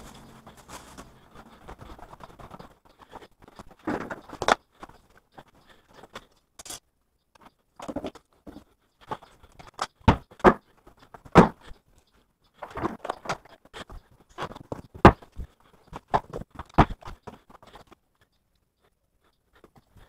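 Irregular knocks, clatter and rustling of household objects being picked up, moved and set down while a room is tidied. The sharpest, loudest knocks come in the middle, around ten to fifteen seconds in.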